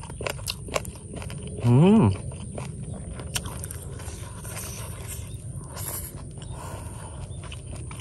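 A man chewing and lip-smacking close to the microphone while eating rice and cooked bird meat with his fingers, with many small wet clicks. About two seconds in he gives a loud, short hummed "mmm" that rises and falls in pitch.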